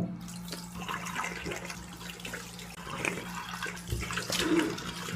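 Water running from a tap into a sink during toothbrushing, a steady rush with irregular splashes.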